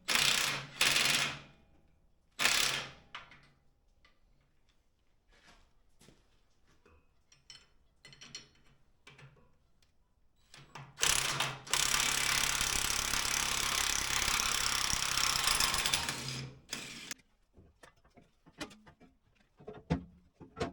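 A power tool run in short bursts, three near the start, then one long run of about five seconds, with a hissing sound and a steady low hum under it.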